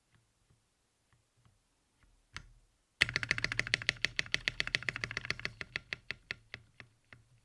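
Typing on a mechanical keyboard with factory-lubed Gateron Cap Yellow V2 linear switches, PBT keycaps and an aluminium case, on the thocky side. A few scattered keystrokes, then about three seconds in a fast run of typing that slows and trails off near the end.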